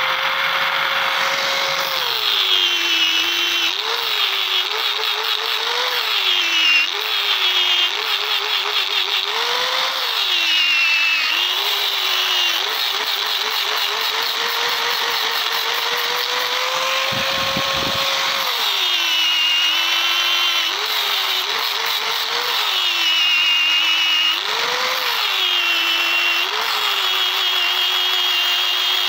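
Angle grinder with an abrasive disc grinding a metal dagger's guard and blade. The motor whine keeps sagging in pitch as the disc bites into the metal and rising again each time it eases off.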